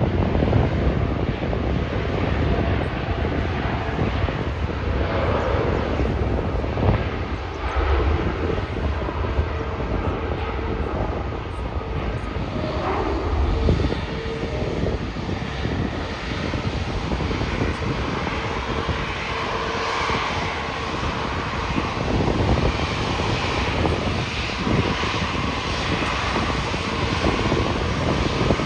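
Airbus A350-1000's Rolls-Royce Trent XWB-97 turbofans running at low taxi power as the airliner taxis after landing: a steady jet rumble and whine, growing a little louder near the end as the aircraft turns toward the listener.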